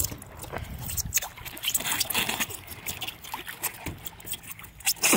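Irregular thumps and scuffs of bare feet and bodies on the padded deck of a BOTE inflatable floating dock, with water lapping and trickling around it.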